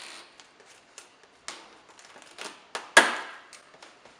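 Scattered sharp taps and clicks from hands handling parts, with one louder knock about three seconds in.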